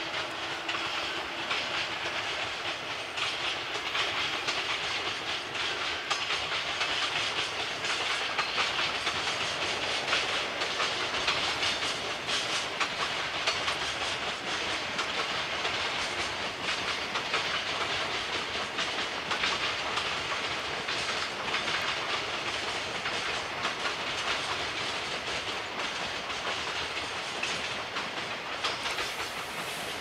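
Freight train of container wagons rolling past as it pulls out of a station, steel wheels clicking over the rail joints in a steady clatter over a rushing hiss.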